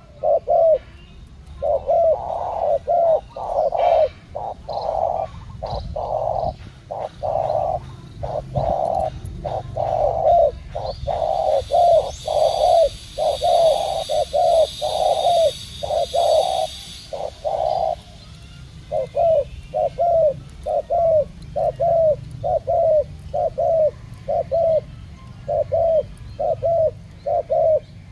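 Spotted doves cooing over and over in long runs of short coos, with a brief pause about two-thirds of the way through.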